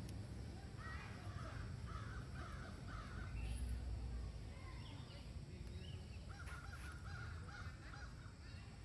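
Crows cawing in two bouts of short repeated harsh calls, the first about a second in and the second near the end, over a steady low rumble that swells briefly in the middle.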